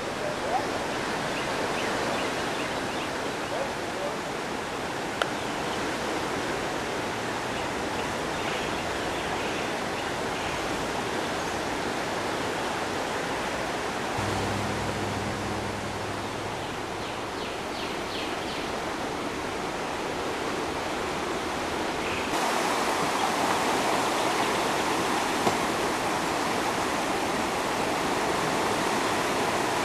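Swollen floodwater of the Guadalupe River rushing steadily past, a constant hiss of moving water that steps up suddenly in loudness about three-quarters of the way through. A brief low hum sits under it about halfway.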